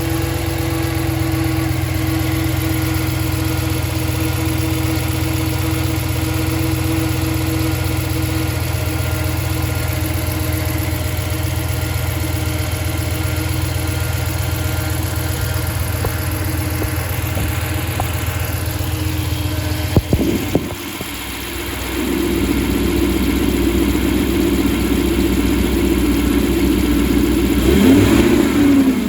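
2014 Ram 1500's 5.7 Hemi V8 running with a steady whine over the engine note. The whine is new since a non-MDS cam and lifter swap, persists with the drive belt off, and so is internal to the engine; the owner suspects camshaft whine. About two-thirds through there are a few knocks, then the sound turns louder and rougher and swells near the end.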